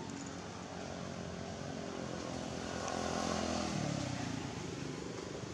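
An engine running as it passes by, loudest about three seconds in, its pitch falling as it goes away.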